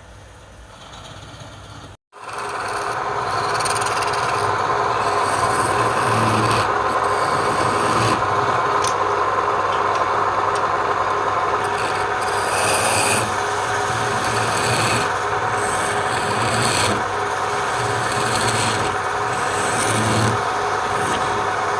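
A wood lathe running with a tool or abrasive rubbing against the spinning wood: a steady whirring hum overlaid with a rasping scrape that swells and fades every second or two. It starts abruptly about two seconds in.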